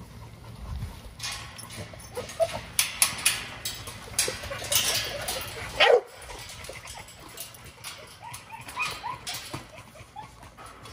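XL pit bulls whining and yipping for raw chicken, with one loud high cry falling steeply in pitch about six seconds in and a few short cries near the end. Before it comes a run of sharp knocks and rattles as the dogs jump against the wire kennel gate.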